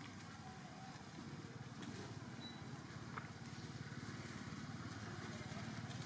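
A small engine running steadily in the background, a low even rumble, with a couple of faint clicks.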